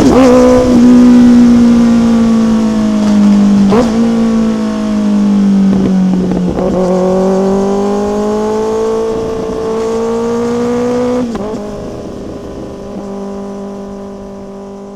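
Motorcycle engine accelerating hard through the gears. The pitch climbs and drops sharply at each upshift, three times, then the engine note fades away near the end.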